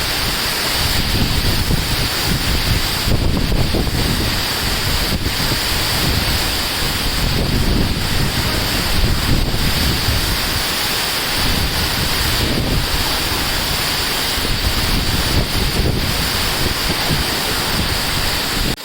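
Waterfall's falling water making a loud, steady rush, with wind buffeting the microphone.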